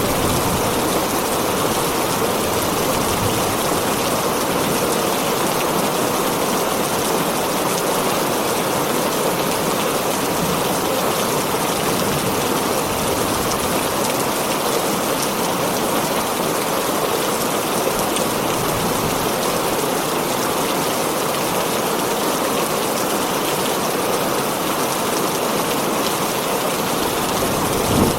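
Heavy rain pattering steadily on a tin roof, an even, dense hiss that neither builds nor fades.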